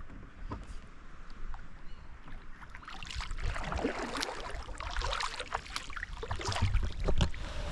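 Water splashing and sloshing around a kayak, loudest from about three to seven seconds in, over a low rumble of the chest-worn microphone being buffeted.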